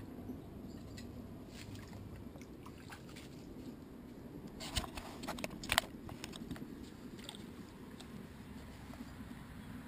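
Muffled underwater sound from a camera in a waterproof housing held in a river: a low, steady rumble of moving water, with a short cluster of sharp clicks and knocks about five seconds in.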